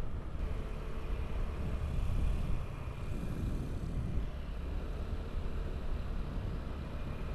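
Motorcycle riding along the road: a steady low rumble of engine and wind noise on the camera's microphone, with no sudden events.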